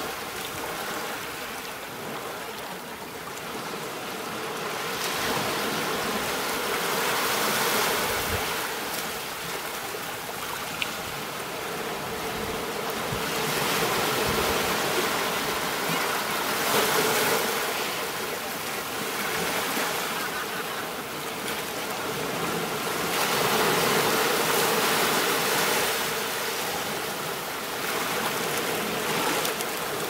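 Ocean surf breaking and washing up on a sandy beach: a steady rushing hiss that swells and eases every few seconds as each wave comes in.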